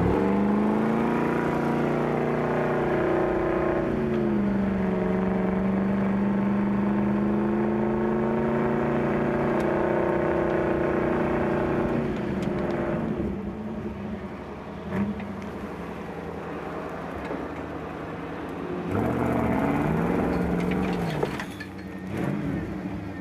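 Offroad pickup truck's engine revving hard under load while climbing through snow, its pitch rising and falling. About twelve seconds in the revs drop to a quieter running, then rise and fall once more briefly near the end.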